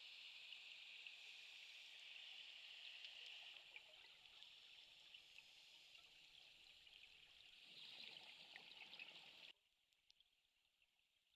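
Faint underwater ambience: a steady high hiss with scattered crackling ticks. It swells into a fuller rush about eight seconds in, then cuts off suddenly about nine and a half seconds in.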